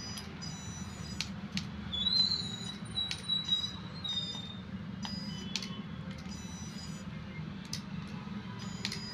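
Toy RC car's small electric drive motor whining faintly as the car shuffles back and forth, with scattered clicks.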